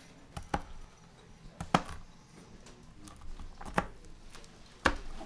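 Knife striking a plastic cutting board as walnuts are chopped: sharp, irregular knocks, some in quick pairs.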